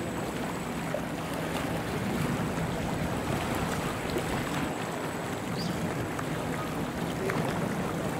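Steady low rumble of waterfront ambience: wind and harbor water against the shore, with a couple of faint, short high chirps.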